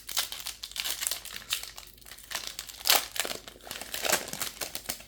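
Foil wrapper of a Magic: The Gathering set booster pack crinkling as it is handled and opened, an irregular crackle with a sharp louder crinkle about three seconds in.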